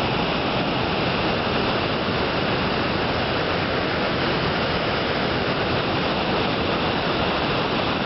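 Steady rush of a swollen, muddy river in flood pouring fast over rocks.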